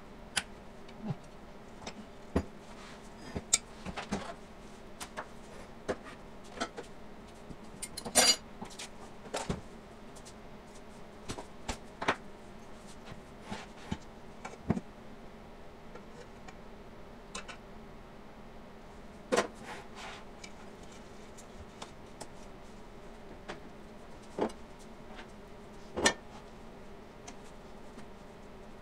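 Scattered clicks and clinks from handling a stainless steel mixer bowl, metal dough hook and plastic dough scraper, over a faint steady hum. The sharpest is a ringing metal clink about eight seconds in.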